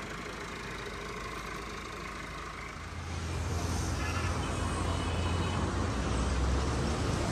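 ATS 290 Special tractor's diesel engine running steadily, a low rumble that becomes louder and heavier from about three seconds in.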